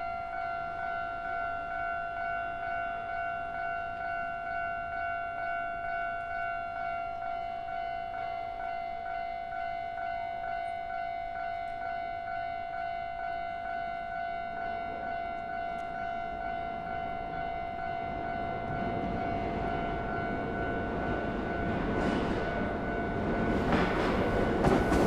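Japanese level-crossing warning bell ringing, a steady pulsing two-tone ding repeated over and over. Over the last several seconds the rumble of an approaching Hankyu train rises under it, growing loud near the end.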